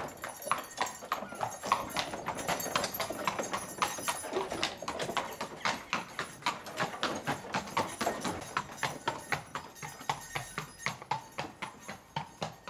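A heavy draught horse's hooves clip-clopping on pavement at a steady walk as it pulls a cart, growing fainter toward the end.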